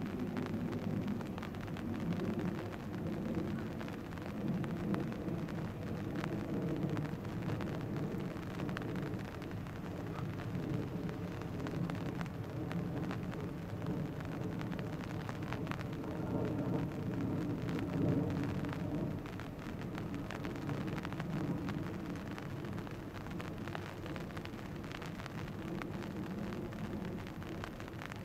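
Steady low rumble of a ship's engine, with light scattered crackling over it.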